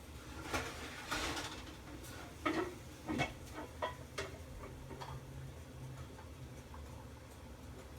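Cooking utensils clinking and knocking against a pan of browned ground meat as the grease is drained, a handful of short sharp hits over the first four seconds or so, over a faint steady hum.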